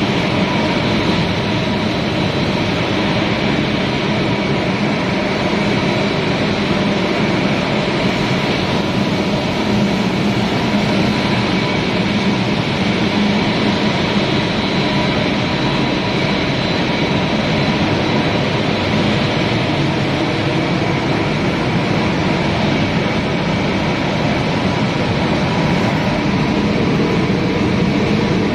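Rice crispy extrusion production line running: a loud, steady machine drone with several constant whining tones in it.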